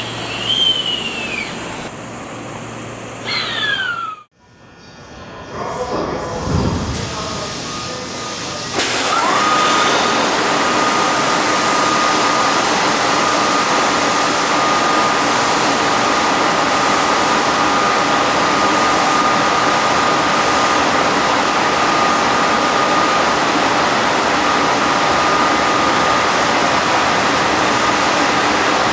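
Screw-type air compressor (MH3096-1600S, early type) on a 209-series electric train cutting in about nine seconds in: a brief rising whine, then a steady, loud, vacuum-cleaner-like hiss with a steady whine. Before it, a few short gliding whistle-like tones and a low rumble.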